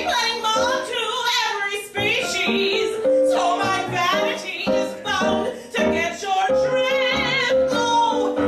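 A woman singing with piano accompaniment, her held notes wavering with vibrato.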